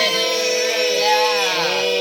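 Several voices holding one long drawn-out vowel together at slightly different pitches, the stretched end of a word called out in unison.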